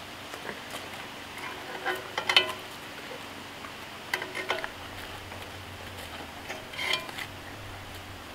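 Metal tongs clinking and scraping against a cast iron Dutch oven while a whole raw chicken is set into it, in three brief clusters of light clicks and knocks about two, four and seven seconds in.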